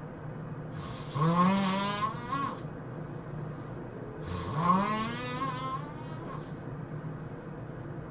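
A person snoring: two long snores about three seconds apart, each rising in pitch at its start, over a steady low hum.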